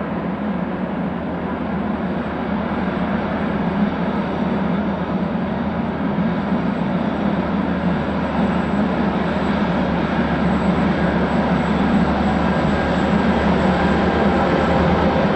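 Freight train locomotives descending a grade under dynamic braking: a steady mechanical drone with a low hum and faint whining tones, slowly getting louder.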